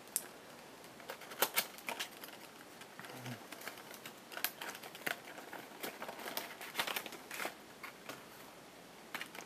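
A puzzle's packaging being opened by hand: scattered light crinkles and clicks of plastic and cardboard.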